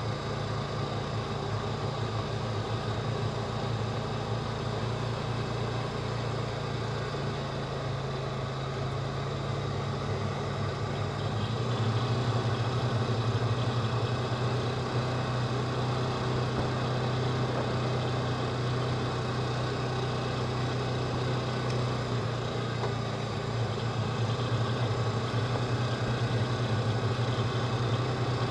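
Polaris Ranger 4x4 side-by-side's engine running while driving, steady and low-pitched, getting louder about twelve seconds in.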